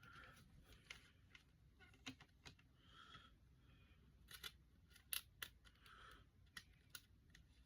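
Near silence with faint, scattered clicks and short rustles of small objects being handled.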